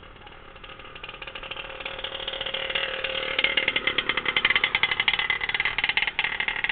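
A small engine running with a rapid pulsing beat, growing louder over the first three seconds or so and then staying loud.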